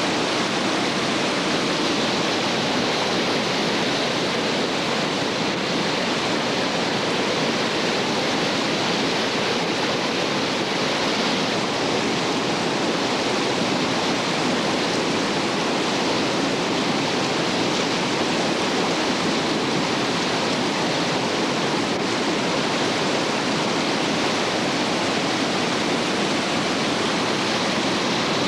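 Whitewater rapids rushing steadily, a constant churning roar of a creek running at about 1820 cfs.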